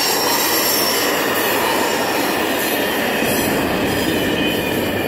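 The last wagons of a container freight train rolling past, a steady noise of steel wheels on rail. Thin high wheel-squeal tones fade out in the second half as the train clears.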